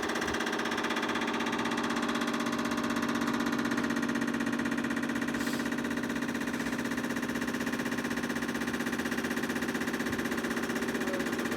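John Deere riding lawn mower's engine idling steadily with the blades disengaged.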